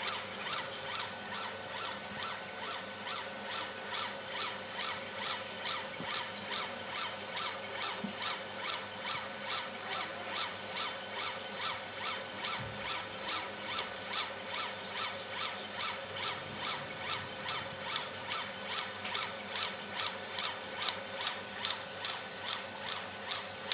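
Home-built CO2 laser engraver raster-engraving a photo: the laser head sweeps back and forth on its gantry, giving a rhythmic whirring stroke about two and a half times a second over a steady hum.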